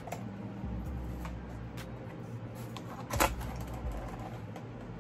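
Cardboard shipping box being handled and the retail box inside it shifting against it: scattered cardboard scrapes and taps, the loudest a short scrape about three seconds in.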